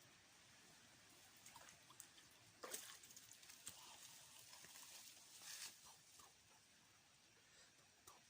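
Near silence with faint scattered clicks and a couple of brief rustles.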